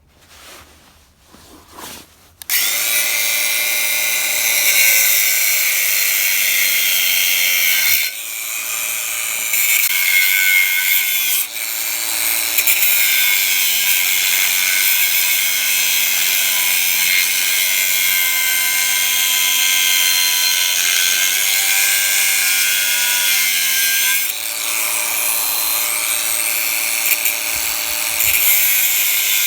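WORX 20 V cordless angle grinder with a 100 mm abrasive disc cutting through a steel angle bar: a loud, hissing grind that starts about two and a half seconds in, after a few clicks. The motor's pitch sags now and then as it loads up in the cut.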